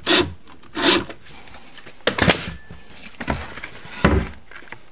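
Handling noise from wooden cabinet doors and their European hinges: about five separate knocks and scrapes, the loudest a little after four seconds in.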